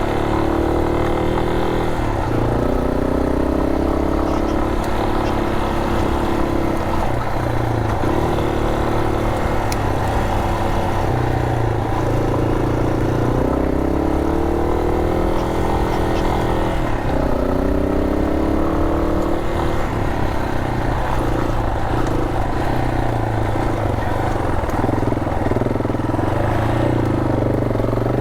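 Yamaha Serow 250's single-cylinder four-stroke engine pulling the bike up a loose-gravel track, its revs rising and falling again and again with the throttle.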